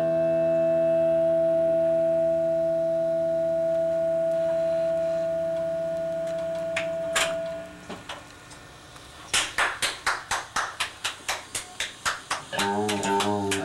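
A distorted electric guitar chord held and ringing for about seven seconds, then cut off. After a short lull comes a fast, even run of sharp clicks, about five a second, and guitar notes start again near the end.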